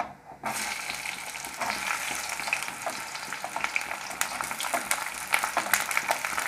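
Sliced onions dropped into hot mustard oil in a kadhai: a sizzle that starts suddenly about half a second in and keeps crackling and spitting as the onions fry.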